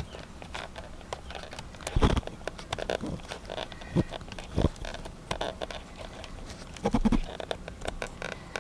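Clicks, knocks and rustling from hands working the airbag module and its plastic wiring connectors at the steering wheel, with louder thumps about two seconds and seven seconds in.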